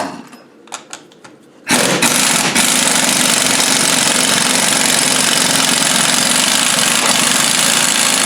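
Air impact wrench hammering on a socket to undo the drop arm nut of a Rover 3500 power steering box. After a few light clicks it starts suddenly about two seconds in and runs steadily on.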